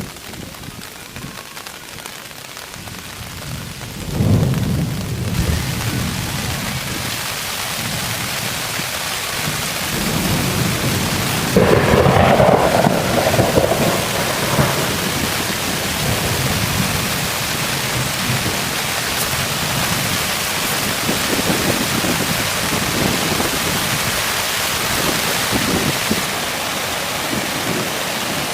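Steady heavy rain with rolling thunder: a low rumble swells about four seconds in and a louder clap rumbles around twelve seconds in.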